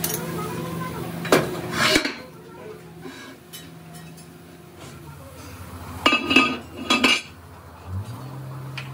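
Heavy steel truck brake drum clanking and scraping on a drill press's steel table, with ringing metal clangs about a second and a half in and again twice around six to seven seconds in. A machine motor hums steadily underneath, changing pitch near the end.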